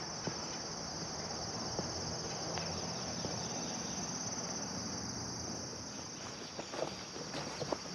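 A steady, shrill chorus of singing insects with a fast pulse. Near the end, footsteps start swishing through tall grass.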